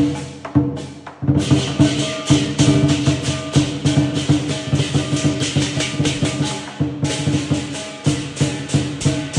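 Lion dance percussion: a drum with clashing cymbals and a ringing gong, beating in a fast steady rhythm, dropping away briefly about a second in.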